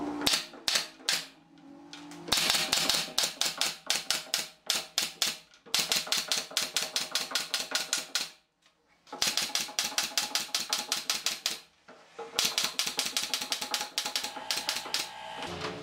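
Pneumatic brad nailer firing rapid runs of brads into pine boards, several sharp shots a second. The shots come in about five bursts separated by brief pauses.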